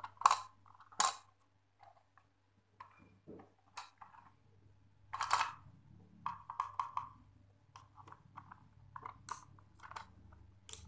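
Small hard-plastic toy and its plastic box being handled: scattered sharp clicks and snaps, with a short cluster of them about two-thirds of the way in, over a faint low hum.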